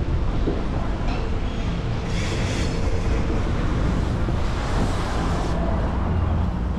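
Steady low rumble of downtown street traffic mixed with wind on the microphone of a moving bicycle, with a brighter hissing rush from about two seconds in that stops suddenly after about three and a half seconds.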